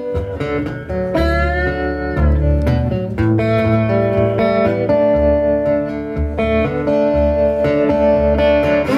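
Acoustic guitar played fingerstyle in a slow blues, a pulsing picked bass under ringing treble notes, a few of them bent or slid in pitch.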